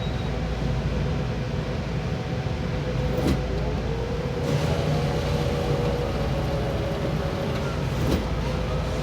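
Large production colour printer running with a steady hum and low rumble, a few faint held tones shifting slightly in pitch, and two sharp clicks about five seconds apart.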